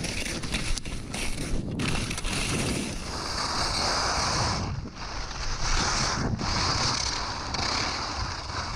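Skis scraping and hissing over icy, hard snow during a downhill run, with wind rumbling on the camera's microphone. The hiss comes in long stretches with short breaks about halfway and two-thirds through.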